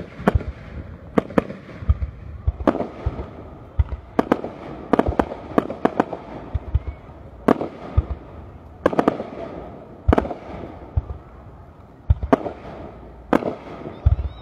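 Aerial fireworks display: shells bursting in sharp bangs, one or two a second at uneven spacing, with deep thuds and a crackling haze between them.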